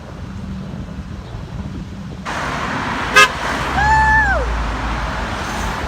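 Road traffic going past, with a very short car-horn toot about three seconds in. A second later comes a high 'woo' cheer that rises, holds, and falls away, while a vehicle engine rumbles underneath.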